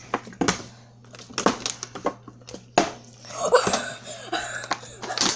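Plastic water bottle flipped and landing on a hard surface, several sharp knocks spread over the few seconds, with a pair about a second and a half in.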